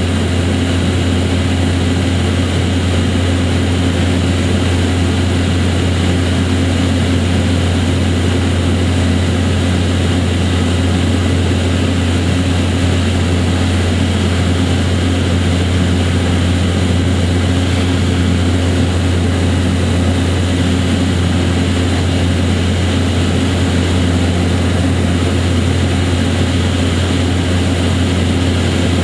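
A steady, unchanging low mechanical drone with a strong low hum, like a large engine or machine running continuously.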